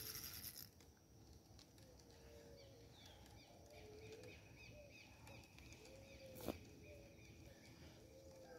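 Faint outdoor birdsong: short low bird calls repeating every half second or so, with small high chirps over them. A high hiss lasts under a second at the start and then stops, and there is one sharp click past the middle.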